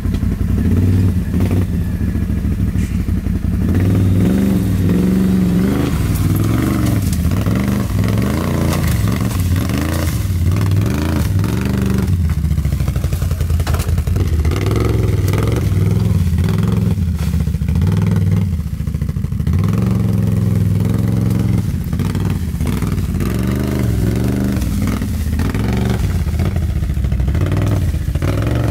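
Can-Am ATV engine running in low gear while crawling over boulders, revving up and down again and again as the throttle is worked.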